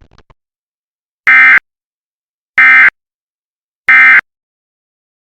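Emergency Alert System end-of-message data bursts: three short, loud buzzing digital squawks about a second and a quarter apart, starting about a second in. They signal that the alert message is over.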